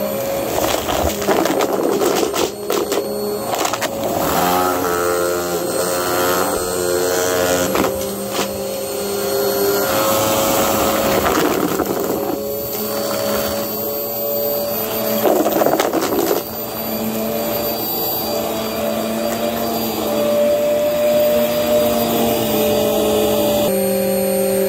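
Vacuum cleaner running steadily with a motor hum, while sucked-up debris of felt scraps, stuffing and foam bits swirls and ticks against its clear dust bin. The motor's pitch shifts a few seconds in and again near the end.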